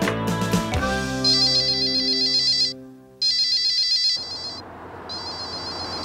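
Cordless telephone's electronic warbling ring, sounding three times in bursts of about a second and a half. Background music runs under the first part and drops out.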